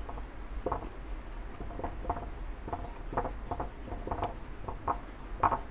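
Marker pen writing on a whiteboard: a run of short, irregular strokes as the letters go down.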